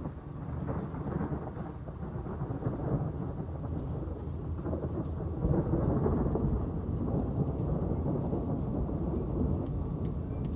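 Rolling thunder: a long, deep rumble that swells about half a second in and peaks around the middle, with steady rain falling underneath.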